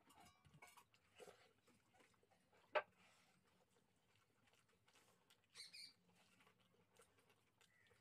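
Faint eating sounds from a man eating rice and curry with his hand: soft chewing and mouth smacks. A single sharp click comes about three seconds in, and a brief high-pitched squeak near six seconds.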